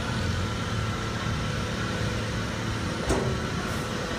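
The engine of an asphalt-paving machine running steadily at a low rumble, with a single sharp knock about three seconds in.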